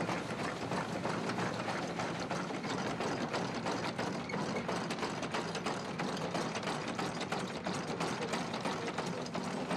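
Wooden hand-cranked winnowing mill (fanning mill) running: a steady, fast clatter of its gears and shaking sieves over the whir of the fan, while grain is poured into its hopper.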